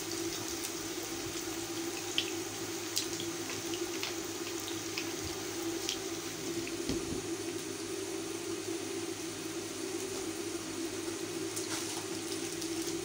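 Onion-tomato masala sizzling and bubbling in a wok with a little water just added to it, a steady wet hiss, with a few light ticks of a silicone spatula against the pan.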